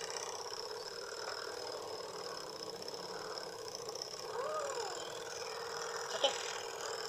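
Battery-powered homemade toy engine, a syringe piston driving a CD flywheel, running steadily with a thin whine. A short rising-and-falling squeak comes about four and a half seconds in, and a brief click a little after six seconds.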